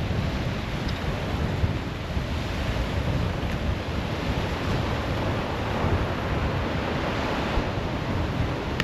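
Small waves washing on the shore, with wind buffeting the microphone as a ragged low rumble.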